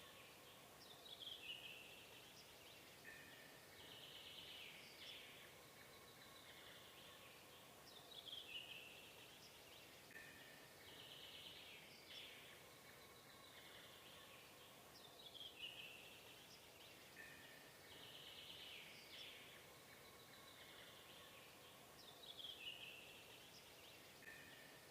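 Faint birds chirping over a low steady hiss, with quick downward-sliding calls. The same pattern of chirps comes back about every seven seconds, like a looped birdsong ambience.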